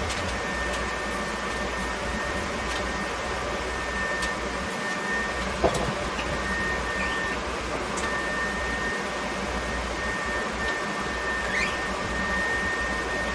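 Steady motor-and-fan drone of shop machinery with a thin, steady high whine and a low hum; a brief knock about five and a half seconds in.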